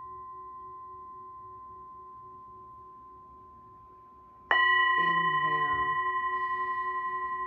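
A metal singing bowl's ring fading slowly, then struck again with a wooden striker about four and a half seconds in: a sudden loud strike that rings on in several steady tones, wavering evenly as it dies away.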